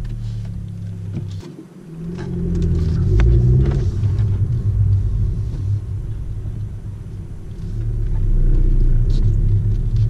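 2017 Honda Civic EX-T's 1.5-litre turbocharged four-cylinder engine pulling away at low speed, heard from inside the cabin. The engine note dips briefly a little under two seconds in, then rises as the car accelerates, and climbs again near the end.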